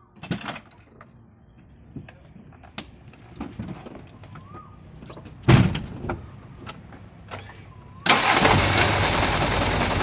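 Light clicks and handling knocks in a truck cab, with one loud thump about halfway through. About eight seconds in, the truck's engine starts and runs steadily and loudly.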